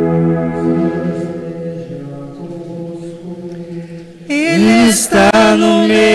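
Church music: a held keyboard chord fades over the first few seconds, then a singer comes in loudly with a chant, the pitch bending into a long wavering note.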